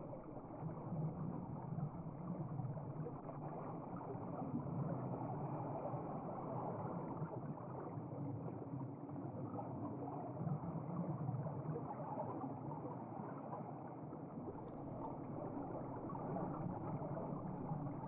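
Steady, muffled rush and gurgle of flowing stream water, with the sound dulled and the treble cut away.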